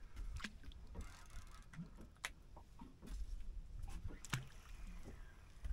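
Faint water lapping against the hull of a small drifting boat, with a few sharp clicks and knocks; the loudest come about two seconds in and about four seconds in.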